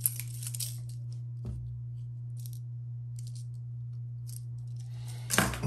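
Light clicks and small clinks of a hard-plastic fishing lure and its treble hooks being turned over in the hand, over a steady low hum. Near the end comes a louder crackle of plastic lure packaging being handled.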